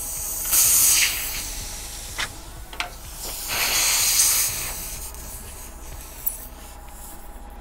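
Air hissing out of a puncture in a semi-truck tire's tread in two bursts of about a second each, as the nail is pulled and a reamer is worked into the hole, with a few light clicks between.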